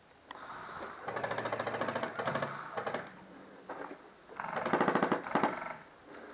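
416-style airsoft electric rifle firing on full auto: two long bursts of rapid, evenly spaced shots, the second about four seconds in.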